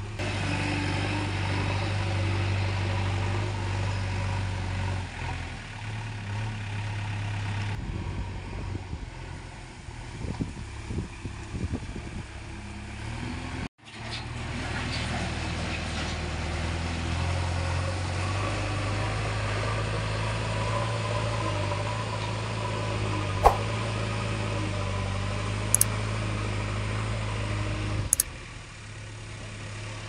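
JCB 3DX backhoe loader's diesel engine running steadily while its front loader bucket works a pile of sand and gravel. There are a few sharp knocks in the second half, and the sound breaks off briefly near the middle.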